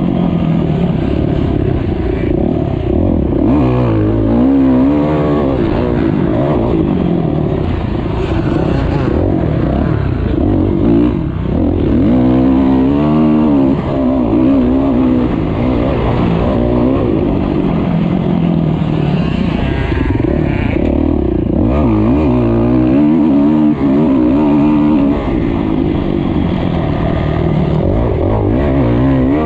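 Motocross bike engine, heard close up from the bike itself, revving hard at racing speed. Its pitch climbs and drops back again and again as it accelerates and shifts through the gears.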